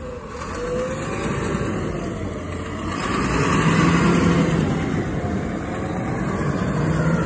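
Natural-gas front-loader garbage truck's engine running as the truck pulls away, growing louder about three seconds in.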